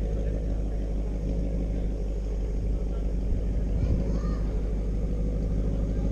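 A car engine idling with a steady low drone.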